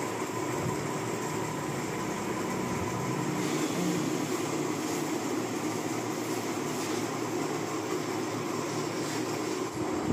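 Cordless electric hair clipper running with a steady buzz as it cuts the hair short on the sides and back of a man's head.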